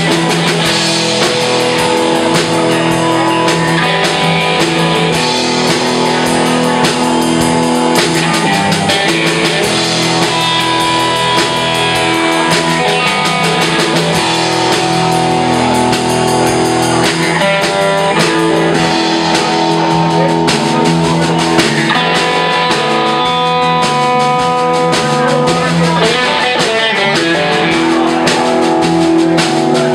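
Live band playing a blues-rock number: electric guitars and electric bass over a drum kit, with steady drum and cymbal strikes.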